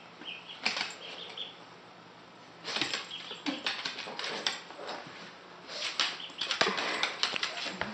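A duckling peeps a few times early on. After that a small dog's claws scrabble and click on a hardwood floor in two spells of quick taps as it scrambles about.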